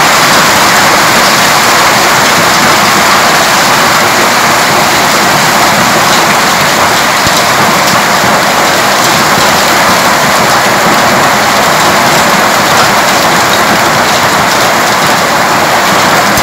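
Hailstorm: hail and heavy rain pelting down without let-up. The loud, steady hiss is flecked with countless small impacts of stones striking the ground.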